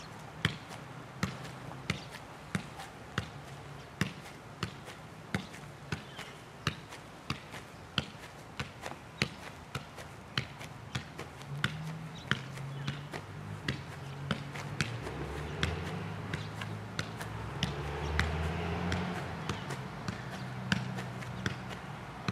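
Size-one soccer ball being juggled on the foot: a steady run of light taps, about three touches every two seconds. A low drone sits underneath in the second half.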